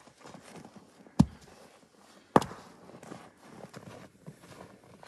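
Two sharp, heavy knocks about a second apart, with small crackles and rustles between them.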